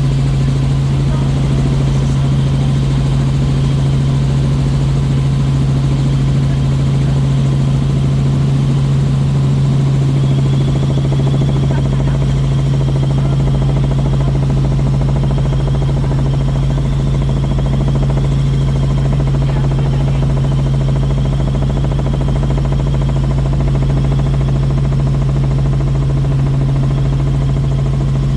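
Helicopter in flight heard from inside the passenger cabin: a loud, steady low drone with a faint high whine above it.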